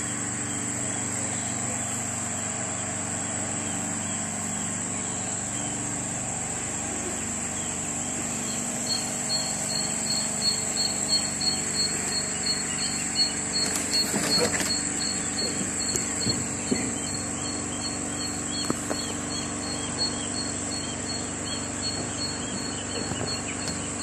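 A steady low hum with a constant high whine under it, joined from about nine seconds in by a growing chorus of broiler chicks peeping, many short chirps overlapping. A brief rustle comes around the middle.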